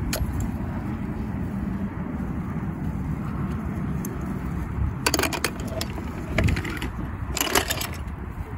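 Steady low rumble of open-air parking-lot ambience, with a few short clusters of sharp clicks and clinks a little past halfway and again near the end, like hard items being handled.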